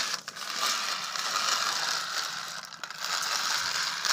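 A plastic toy tractor handled and pushed on rough concrete: a steady gritty scraping and rattling with some rustling of plastic.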